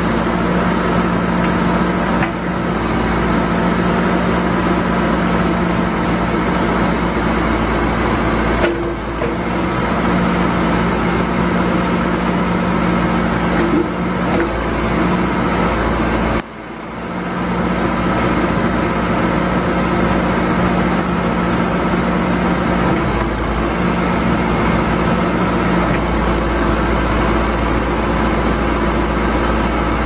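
2011 John Deere 310J backhoe loader's four-cylinder diesel engine running steadily under hydraulic load while the backhoe boom and dipper are worked. The engine note dips briefly about 9 and 16 seconds in.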